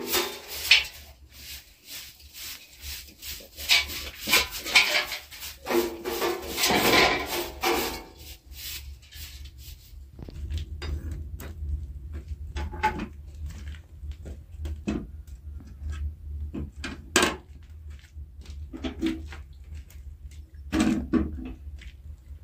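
Quick, repeated brushing and scraping strokes of a straw broom clearing ash and debris around a clay floor oven. About ten seconds in it turns quieter: scattered taps and knocks over a steady low hum, with one sharp knock a few seconds before the end.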